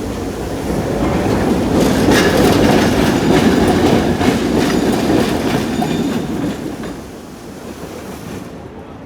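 Street tram passing close by on its rails: a rumble that swells to its loudest about two seconds in, with the wheels clacking over the rail joints, then dies away about seven seconds in.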